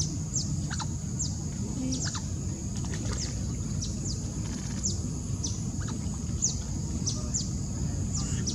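Repeated short, high-pitched chirps, each falling quickly in pitch, about one or two a second, over a steady low rumble.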